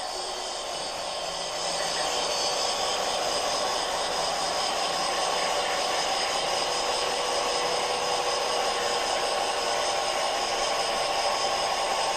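Gauge 1 model narrow-gauge steam train running on the layout's track: a steady mechanical running noise with hiss and a few held tones, getting a little louder about two seconds in.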